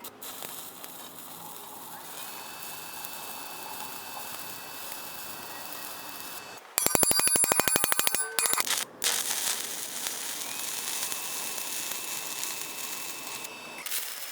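Electric arc welding: a steady frying hiss with a faint high whine. About seven seconds in it gives way to a much louder, rapid crackling buzz for about a second and a half, then the steady frying returns.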